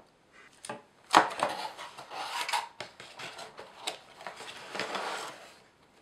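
Cardboard box and packaging being handled: rustling, with sharp knocks and clicks as items are taken out of the box's compartments. The loudest knock comes about a second in.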